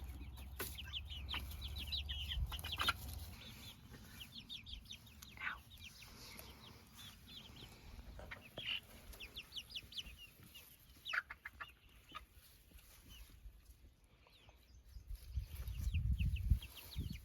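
Laying hens clucking quietly, short quick calls coming in scattered clusters. A low rumble sounds near the end.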